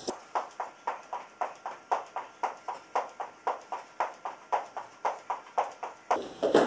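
Rapid, even thumps of sneakers landing on the floor during jumping jacks, about four a second.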